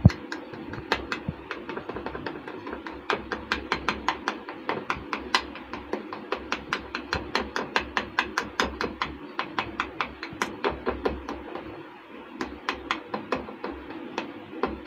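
A fork pricking rolled dough stretched over an upside-down steel bowl: a quick run of light clicks, several a second, as the tines strike the metal through the dough, with a brief pause a little before the end.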